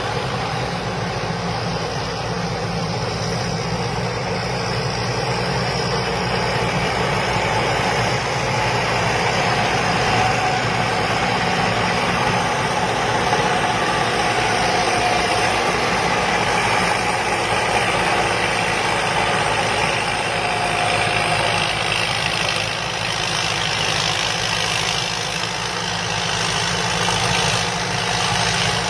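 Combine harvester's diesel engine running steadily, with a steady machine whine over it.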